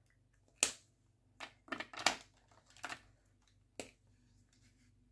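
Several sharp plastic clicks and taps in quick succession as the caps of Mr. Pen gel highlighters are pulled off and handled, dying away near the end.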